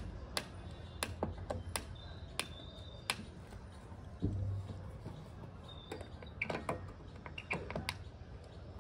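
Irregular sharp clicks and light taps, a few a second, with a short low thud about four seconds in.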